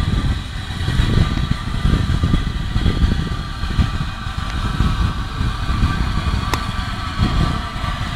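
Steam tank locomotive running slowly into a station, a steady low rumble with a faint steady hiss-like ring above it and one sharp click about six and a half seconds in.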